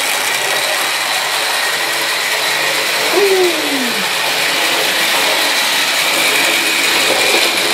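00 gauge Flying Scotsman model locomotive running on the layout: a steady electric motor whirr with a faint high whine, its wheels running on the track. A short falling tone sounds about three seconds in.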